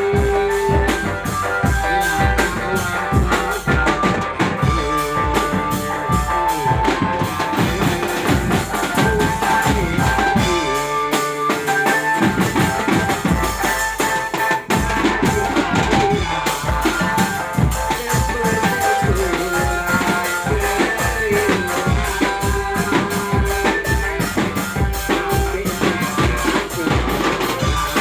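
Dramben street drum band playing a song: bass drum and snare keep a steady, driving beat under a sustained melody line. The bass drum drops out for about a second near the middle, then the beat comes back in.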